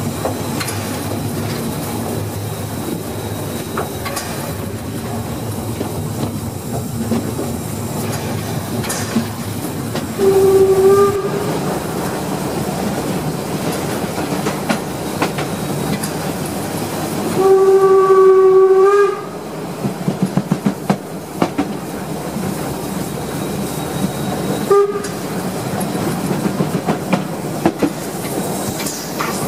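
Narrow-gauge 2-10-2T steam locomotive 99 236 under way, with a steady rumble and clatter of running. Its steam whistle sounds three times: a short blast about ten seconds in, a longer blast of about a second and a half a little later, and a brief toot after that.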